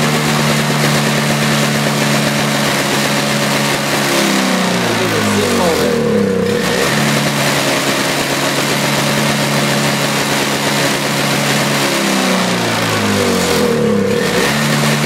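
Toro CCR 2450 snowblower's two-stroke engine running on a cold start, its speed sagging and picking back up twice, about eight seconds apart. The engine had only run on choke before, and its carburettor was just drained of old gasoline and oil.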